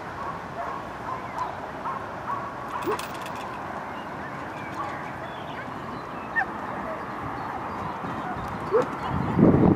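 Dogs barking and yelping in short calls, faint against steady outdoor background noise, with a louder burst of sound near the end.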